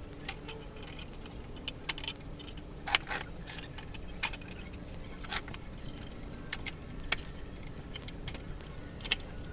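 Irregular metallic clicks and clinks of hand tools and bolts on a motorcycle's rear wheel area as a rear mudguard is fastened on, with the sharpest knocks about three seconds in and near the end.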